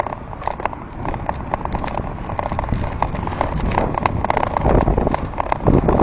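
Ride noise from a moving bicycle picked up by a handlebar-mounted camera: irregular clicks and rattles over road noise, with a low rumble building near the end.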